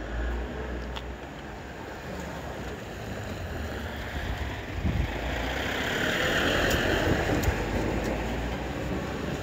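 Seibu 001 series Laview limited express train running past on the line. Its noise builds from about four seconds in to a peak around seven seconds, then eases off.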